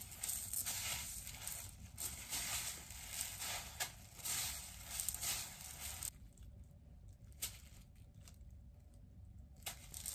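Tiny rice-cracker beads (five-colour arare) rustling and pattering in a plastic bowl as a gloved hand rolls and presses an egg-washed croquette ball through them, with a plastic glove crinkling. The rustling runs busily for about six seconds, then drops to a few scattered clicks.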